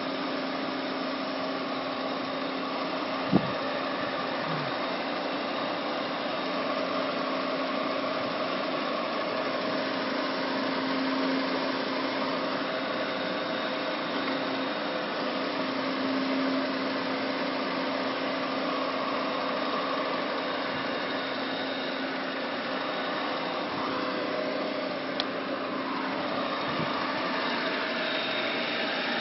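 Myford MG12 cylindrical grinder running with a steady mechanical hum. A sharp click comes about three seconds in, and a smaller one comes late on.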